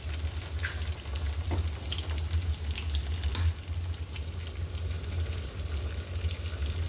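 Steady low hum with an even hiss over it, and a few faint short clicks and taps.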